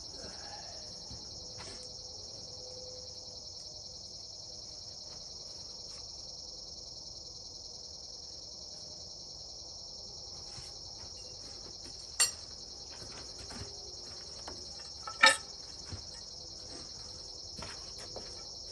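Steady night chorus of crickets trilling. Two sharp knocks stand out, one about twelve seconds in and a louder one about three seconds later, with a few faint clicks around them.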